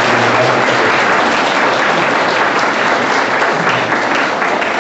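Audience applauding, a dense steady clapping that begins to break into more separate claps near the end.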